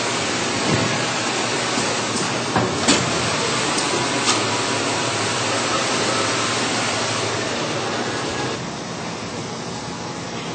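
All-Fill Model 1545 piston filling machine running: a steady hiss with a few sharp clicks from its mechanism in the first half. The hiss drops a little near the end.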